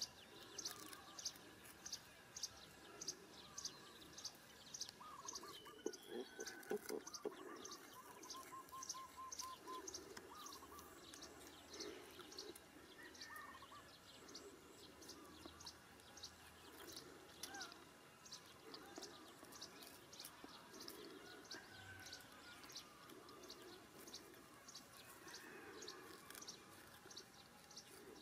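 Faint outdoor field ambience: a high chirp repeating steadily two or three times a second, with scattered short bird calls and a brief patch of clicking rustle about six seconds in.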